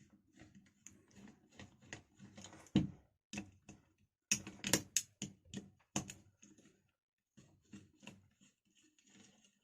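Irregular metal clicks and knocks of an 8 mm spanner working the screws on a mixer grinder's motor, the loudest knocks about three seconds in and again between four and six seconds in.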